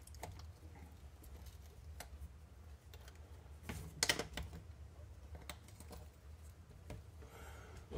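Faint, scattered clicks and taps of small RC differential parts and hand tools being handled, a second or two apart, with a short cluster of louder clicks about four seconds in, over a low steady hum.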